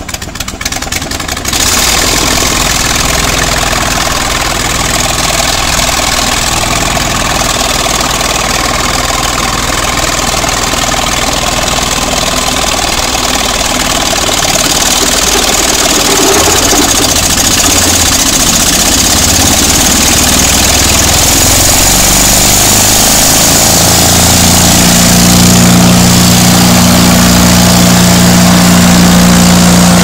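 Vermeer BC625 wood chipper's engine running steadily, jumping up in level about a second and a half in. Around twenty-two seconds in a steady low hum joins and the machine grows louder.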